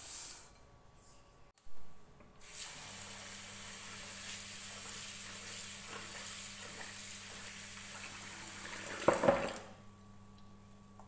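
Kitchen tap running into a bowl of red lentils in a sink while a hand rubs the lentils to rinse them, a steady hiss of water. A short louder burst just past nine seconds in, then the water stops.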